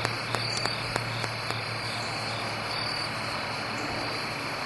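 Crickets chirring steadily, with a few light clicks in the first second and a half and a low hum that fades out about two seconds in.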